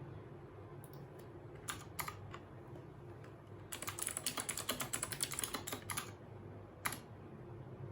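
Royal Kludge RK68 (G68) mechanical keyboard with clicky RK blue switches and stock stabilizers being typed on. There are a few single keystrokes, then a fast run of keystrokes lasting about two seconds in the middle, and one more keystroke near the end.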